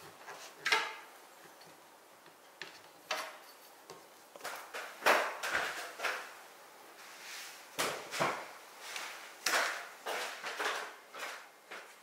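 Irregular knocks and clacks of wood and metal tools and workpieces being handled at a woodworking bench, a string of separate strikes that comes thicker from about four seconds in.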